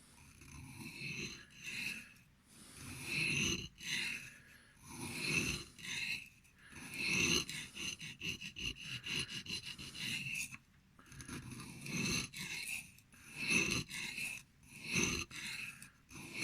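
Knife blade scraping in repeated strokes over a new, oiled Arkansas sharpening stone, about one stroke a second. The sharpener says the stone's sound "does not sound great" to him.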